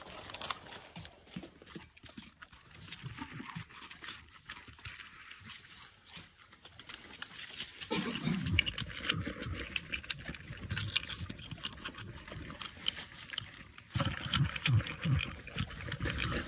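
Bernese mountain dog eating dry kibble from a steel bowl: rapid irregular crunching and chewing, louder from about eight seconds in.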